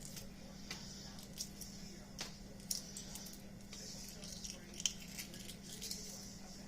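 Light kitchen handling sounds: scattered small clicks and taps of food and utensils being worked at the counter, over a steady low hum.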